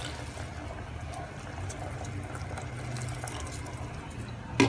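White vinegar pouring from a plastic bottle into a pot of simmering pork adobo, liquid splashing and bubbling. A single sharp knock near the end.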